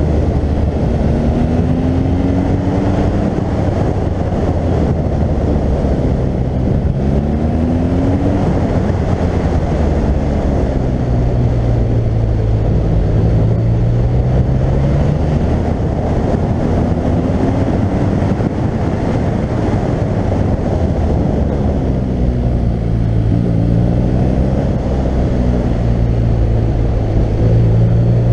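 BMW R1200GS boxer-twin engine under way, its pitch rising several times as the bike accelerates out of bends and dropping back as the throttle closes, over a steady rush of wind noise on a helmet-mounted camera.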